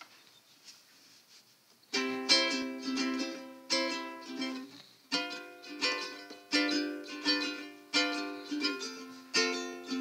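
Near silence for about two seconds, then background music on a strummed string instrument: chords struck one after another in a steady rhythm, each ringing and fading.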